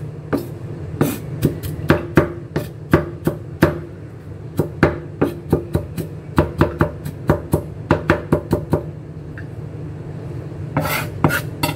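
Chef's knife chopping garlic on a round wooden chopping board: quick knocks of the blade on the wood, about three a second, which stop around three-quarters of the way in. Near the end comes a short scraping as the blade gathers the minced garlic.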